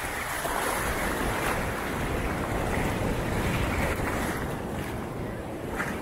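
Sea waves washing onto the beach in a steady rushing wash that swells and eases, with wind buffeting the microphone.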